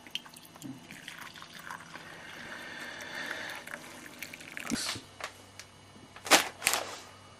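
Coffee being poured into a small cup, a steady trickling pour lasting a few seconds. It is followed by a few light clicks and, near the end, two sharp knocks close together.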